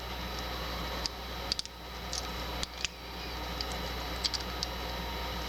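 A lock pick working the pins inside a Doit weatherproof padlock's keyway under top-of-keyway tension: a few scattered small metallic clicks and ticks over a steady background hum.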